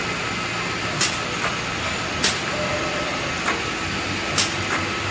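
Holztek CNC six-sided panel drilling machine running with a steady mechanical hum, broken by short sharp hisses every second or so.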